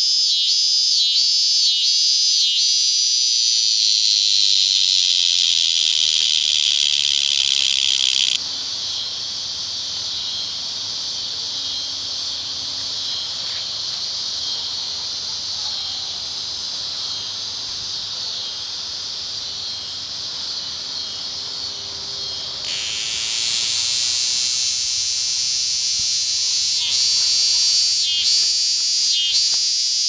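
Cicadas buzzing loudly, a high, steady drone with quick pulsing near the start and near the end. About eight seconds in it drops abruptly to a quieter, wider hiss, and it comes back loud again about twenty-three seconds in.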